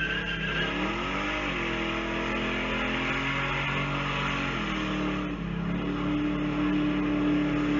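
A car engine revving: its pitch dips and climbs, then holds steady over an even hiss of exhaust noise.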